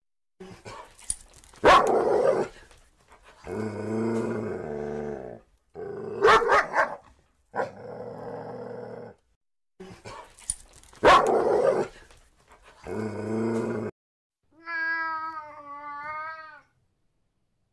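A boxer dog vocalizing: short loud barks alternating with longer, low, drawn-out sounds, the same run heard twice. Near the end a cat gives one meow that wavers in pitch.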